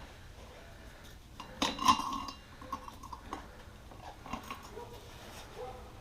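Metal parts clinking and knocking as a motorcycle rear wheel is worked into its swingarm, with one louder clank that rings briefly a little under two seconds in and lighter taps after it.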